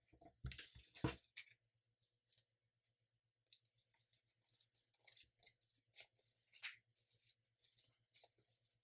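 Faint rustling and crinkling of a thick, many-layered folded sheet of paper being creased and handled by hand, in short irregular bursts, densest in the first second. A faint steady low hum sits underneath.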